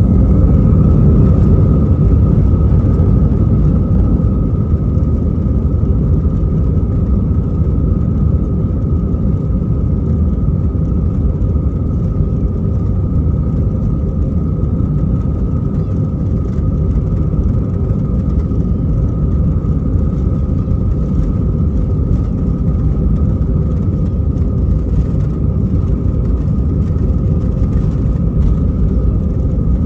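Steady jet engine drone and rumble inside the cabin of an Airbus A320-214 during its departure, with a steady whine from the CFM56 engines' fans above the low rumble.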